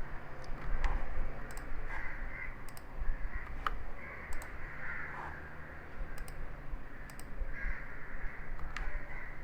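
Sharp computer-mouse clicks every second or so, with crows cawing in the background several times and a steady low hum underneath.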